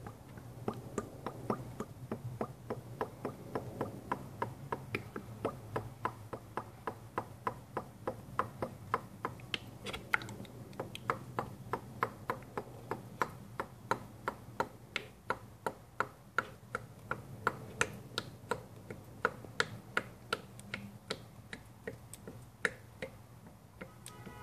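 New motor oil glugging out of a jug into the engine's fill funnel, an even train of short glugs about three a second as air bubbles back into the container.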